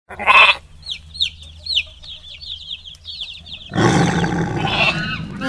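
Birds calling: a loud short squawk, then a run of quick, high, falling chirps, then a louder, denser clamour of calls from about four seconds in.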